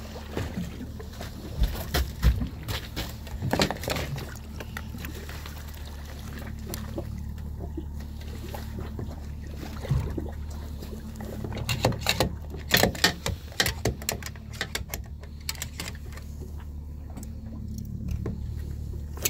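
A boat's engine idling with a steady low hum, under irregular water splashes and knocks at the hull as a large cod is held alongside and unhooked at the surface.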